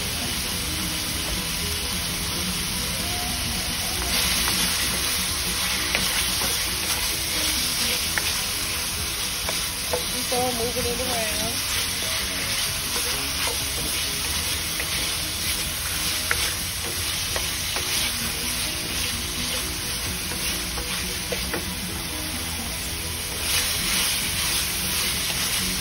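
Diced chicken breast sizzling in sesame oil in a wok over medium-high heat, with a wooden spoon scraping and turning the pieces. The sizzle swells about four seconds in and again near the end as the chicken is stirred.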